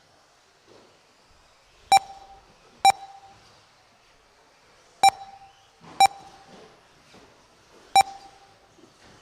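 Five short, identical electronic beeps from an RC race's lap-timing system, coming at uneven intervals, each marking a car crossing the timing loop.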